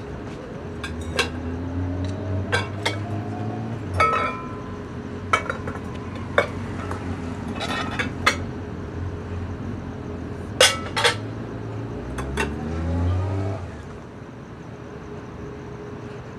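Cut-glass bowls clinking and knocking as they are picked up and set down on one another: a dozen or so sharp clinks, the loudest pair near the middle, stopping about three-quarters through. A low rumble swells in the background twice.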